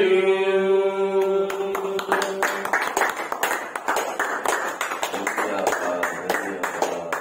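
Voices singing together, holding a final long note that stops about two and a half seconds in, while hand clapping starts under it and carries on as steady applause.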